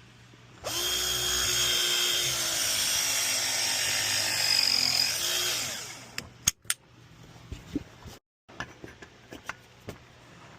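Power drill running for about five seconds, its motor pitch sagging slightly under load before it spins down. A few sharp clicks and knocks follow.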